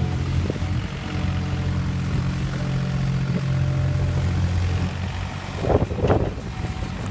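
Mini excavator's engine running steadily under load as it works a tree stump out, with a few short, louder cracks or knocks near the end.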